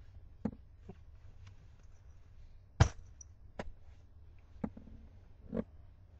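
Handling noise: about six separate light knocks and clicks, the loudest nearly three seconds in, over a low steady hum.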